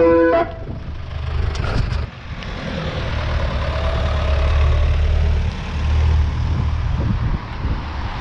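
Ice cream van chimes cut off about half a second in, leaving the Ford ice cream van's engine running as it drives off, with wind buffeting the microphone in a loud, uneven rumble.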